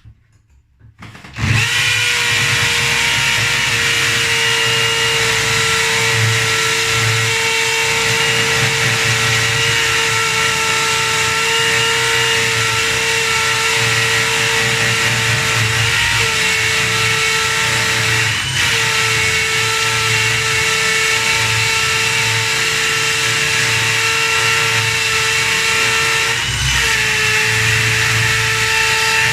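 Bosch GSB 18V-150 C cordless impact drill starting about a second and a half in and running steadily at full speed while drilling, its motor whine dipping briefly three times under load.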